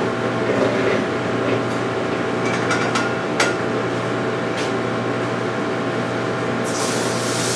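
Electric cement mixer running with a steady mechanical hum, with a few sharp knocks in the middle. Near the end a hiss of water spray from a hose nozzle starts up over it.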